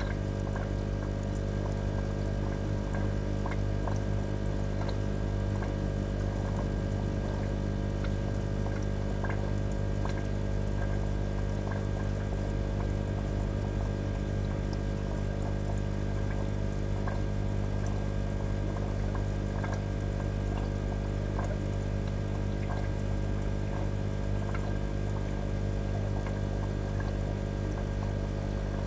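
Aquarium water circulating: a steady trickle with many small bubbling ticks over a constant low pump hum.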